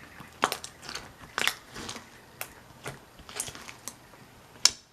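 Slime being squeezed and poked by hand, giving a dozen or so irregular sticky clicks and pops, the loudest near the end.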